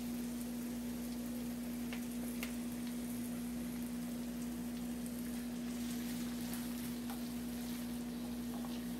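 Diced potatoes and vegetables sizzling in hot butter and bacon fat in a skillet, a steady rain-like crackle with a few faint ticks. A steady low hum runs underneath.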